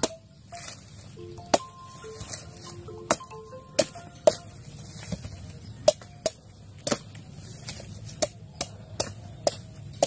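Machete chopping into the husk of a young coconut: about a dozen sharp strikes at irregular intervals, roughly one a second.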